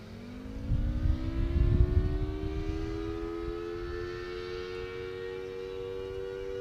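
Federal Signal Thunderbolt 1000T siren with a 4/5-port rotor winding up from a start: two tones rise together and settle into a steady two-note chord after about three seconds. A low rumbling noise sits underneath, loudest about one to two seconds in.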